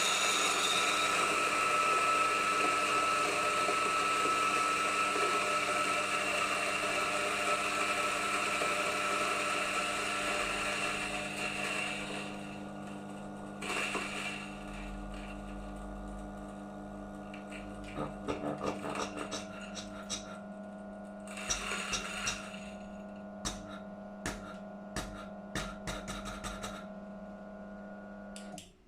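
G-Iota electric coffee grinder grinding a single 13 g dose of beans. The motor runs steadily with a loud grinding rasp for about twelve seconds. The rasp then thins as the beans run out, leaving the motor with scattered crackles and ticks from the last beans, before it switches off near the end.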